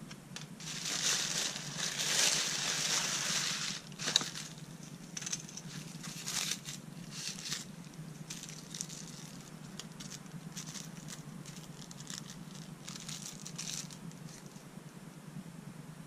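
Thin plastic carrier bag crinkling and rustling as it is pulled off a plastic takeaway bowl, loudest over the first few seconds, with one sharp click about four seconds in. After that, lighter scattered rustles and clicks as the bowl's tape and plastic wrapping are handled.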